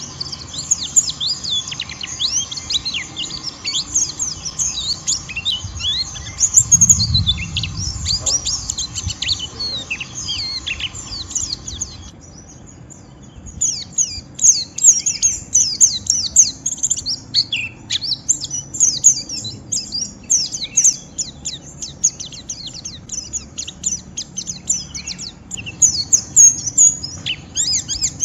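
White-eye (pleci) twittering in the rapid, rough 'ngeriwik' chatter: dense runs of short, high chirps, many falling in pitch. The chatter pauses for about a second around twelve seconds in, then resumes.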